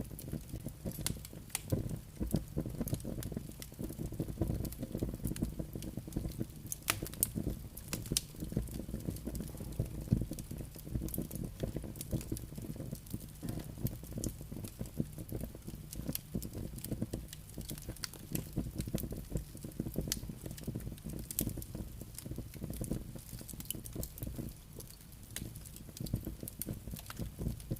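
Campfire burning, with frequent sharp crackles and pops from the wood over a steady low rumble.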